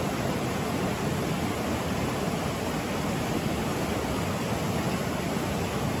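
Steady rush of a mountain stream's whitewater rapids, the river running high and fast after heavy rain.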